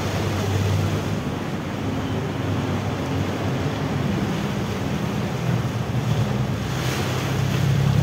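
A motorcycle engine running at low speed as the bike wades through floodwater, with water rushing and splashing around it and wind noise on the microphone. The engine note steps up about halfway through, and a louder splash comes near the end.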